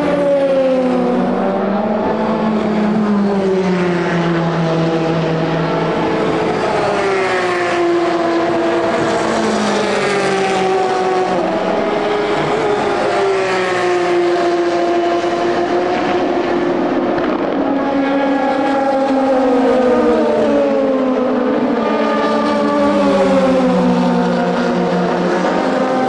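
Endurance race car engines running at racing speed, several at once, their pitch repeatedly rising and falling as the cars accelerate and slow.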